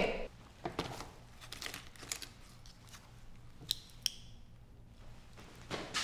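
Small rustles and clicks of someone rummaging for a mechanical-pencil lead case, then two sharp plastic clicks in quick succession about midway.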